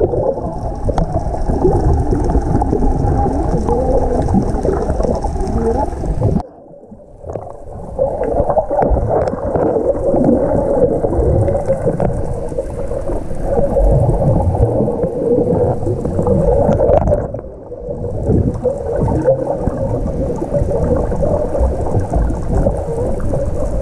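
Muffled underwater sound picked up by a GoPro in its housing: a dense low rumble of water with bubbling and gurgling from swimmers' bubbles and fin kicks. It drops away briefly twice, about six and a half seconds in and again near seventeen seconds.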